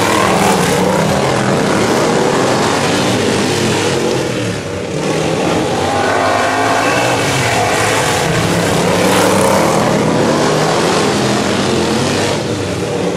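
Several racing riding lawn mowers' engines running hard together, their pitch rising and falling as the mowers pass close by and accelerate out of the turns. The sound dips briefly about four and a half seconds in, then builds again.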